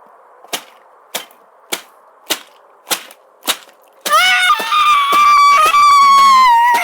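Sharp knocks, evenly spaced at a little under two a second. About four seconds in, a loud, high, held cry or wail comes in and slides slightly down in pitch, with the knocks going on under it.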